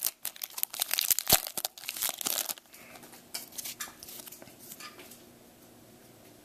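A foil baseball-card pack wrapper crinkling and tearing open for about two and a half seconds, then only faint rustling as the cards are handled.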